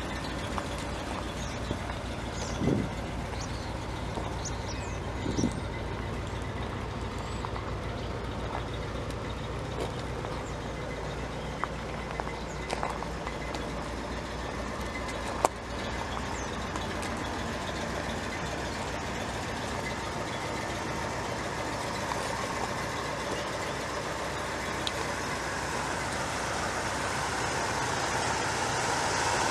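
A car engine idling steadily, with a few short knocks over it and noise building toward the end.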